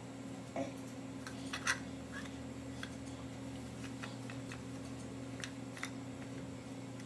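Toys being handled by a baby: scattered light clicks and taps over a steady low hum.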